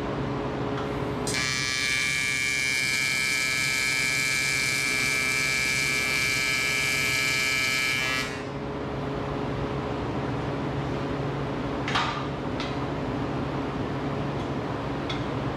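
An electric welding arc on aluminium, buzzing steadily for about seven seconds from about a second in, then stopping. A lower steady hum continues after the arc stops, with a few light clinks of metal.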